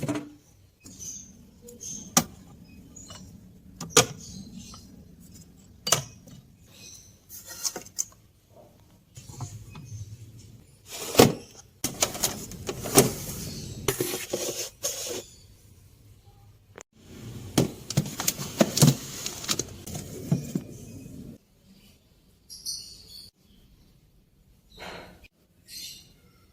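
Kitchen handling sounds: repeated clinks and knocks of containers, glass and dishes being moved, with two longer stretches of scraping or rustling noise in the middle.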